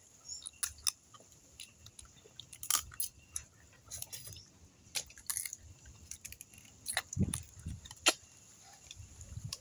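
Cooked crab being eaten close to the microphone: irregular cracks and clicks of shell being bitten and broken, with chewing in between. The sharpest cracks come a little after two and a half seconds and about eight seconds in.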